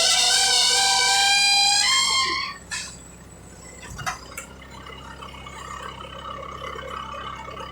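A loud sound with several gliding pitches stops about two seconds in. A quieter, steady engine drone with a low hum carries on after it.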